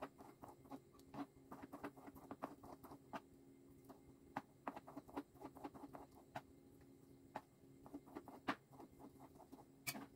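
Kitchen knife slicing tofu into thin strips on a plastic cutting board: quick, irregular taps of the blade on the board, several a second, faint, with a few sharper knocks.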